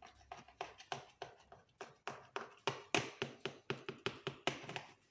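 A quick, even series of light clicking taps, about four a second, stopping near the end.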